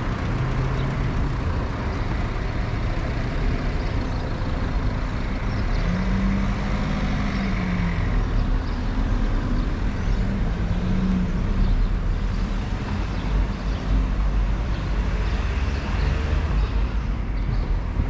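Steady street traffic noise with a low rumble. A motor vehicle's engine rises and falls in pitch about six seconds in and again about ten seconds in.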